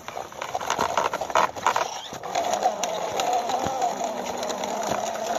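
Plastic wheels of a toy dump truck rattling and clicking as it is pushed by hand over rough pavement, settling into a steady whir about two seconds in.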